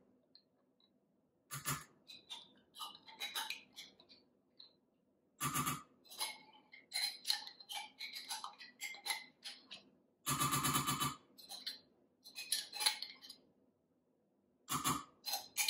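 Metal spoon scraping plain yogurt out of its pot and clinking against the pot and the rim of a stainless-steel saucepan of milk: a string of small clicks and scrapes, with louder clinks a few times and a longer run of clinking about ten seconds in.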